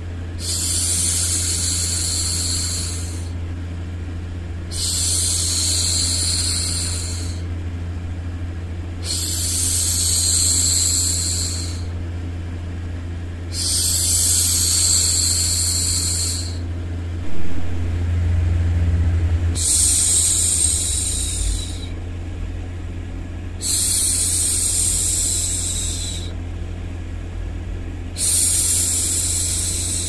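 A woman shushing, a long soothing "shhh" repeated seven times, each lasting two to three seconds with a pause of a second or two between, to hush a baby to sleep. A steady low hum runs underneath.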